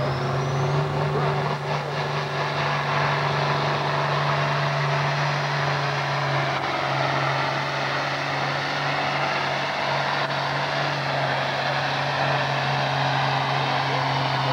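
Antique farm tractor engine running hard under load while pulling the weight sled: a steady, even drone with no change in pitch.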